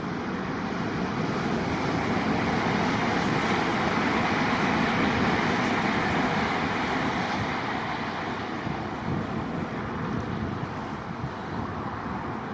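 A Shinkansen high-speed train passing on the lakeside viaduct: a rushing rumble that swells to a peak about halfway through and slowly fades, with wind on the microphone.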